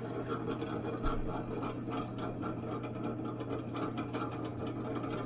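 Well pump running with a steady low hum, with water flowing through the pipes into the hot water tank as it fills.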